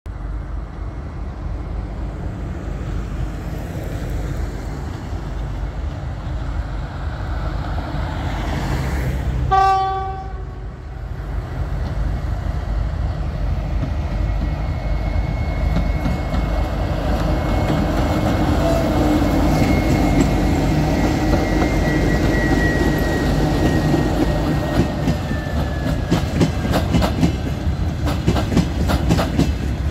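Two TEM18 diesel shunting locomotives hauling a freight train, their engines rumbling louder as they approach. There is one short horn blast about a third of the way in, and a thin high whine as the locomotives draw near. Near the end, open freight wagons pass with rapid wheel clicks over the rail joints.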